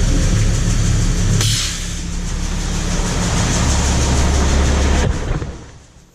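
Semi truck's diesel engine running at low speed as the truck is lined up to dump a load of grain, with a short hiss about a second and a half in. The engine fades out shortly before the end.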